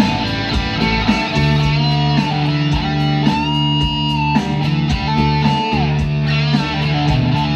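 Instrumental guitar music with a steady beat: a bending lead guitar line over a bass and drum rhythm.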